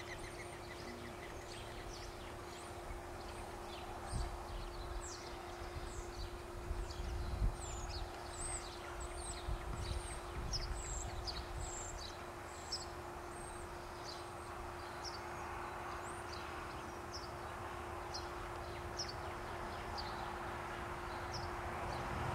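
Small birds chirping outdoors: a long run of short, high notes, mostly sliding down, about two a second. Under them are a faint steady hum and some low rumbling on the microphone.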